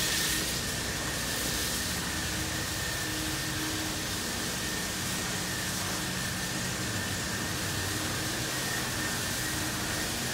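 Washworld Profile MAX brush car wash running: a steady hiss of spraying water and machinery with a thin, steady high whine over it.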